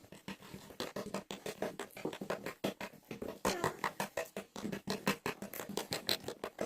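Homemade slime being squeezed and worked by hand, giving a quick, irregular run of wet clicks and pops.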